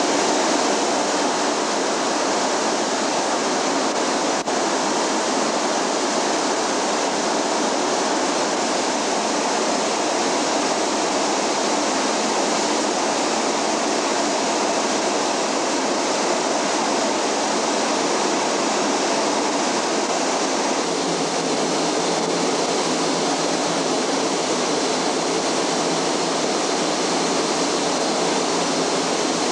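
Loud, steady machinery noise of a ship's engine room: the steam turbo-electric plant of the liner Canberra running, an even rushing din with no distinct beat or tone.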